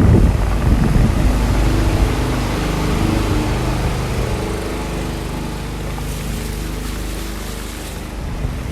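A motor vehicle engine going by, its pitch holding and then dropping lower as it fades, over wind buffeting the microphone.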